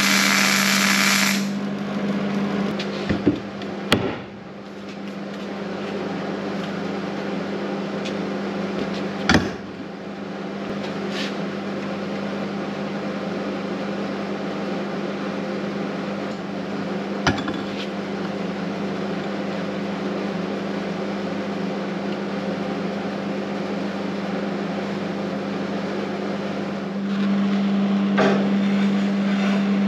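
MIG welder crackling for about a second and a half, then stopping. After that a steady hum with a few sharp metal knocks and taps.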